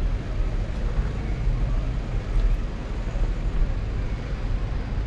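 Steady low rumble of wind and rolling noise while riding a bicycle through city streets.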